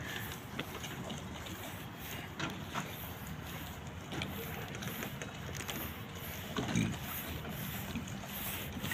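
Outdoor harbour ambience: a steady low rumble and hiss with scattered light clicks, and a brief low thump about two-thirds of the way through.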